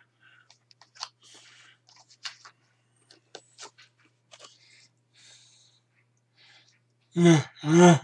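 Faint clicks, breaths and soft rustling as a man handles a paper flashcard, then about seven seconds in his voice sounding two loud syllables.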